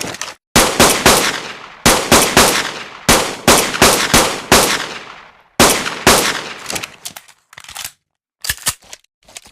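Made-up pistol gunshot sound effect: a rapid string of about a dozen sharp shots in quick groups, each with an echoing tail that fades out. After about six seconds the shots give way to a few shorter, quieter sharp clicks.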